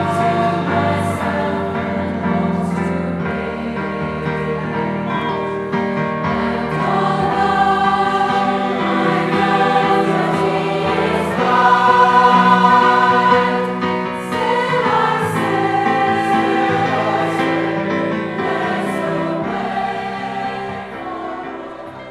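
A choir singing held chords of several voices together, fading out near the end.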